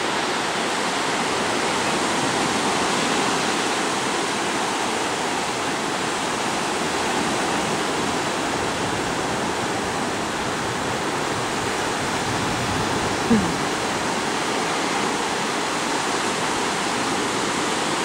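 Steady rush of surf breaking on a sandy beach, with one brief louder sound about thirteen seconds in.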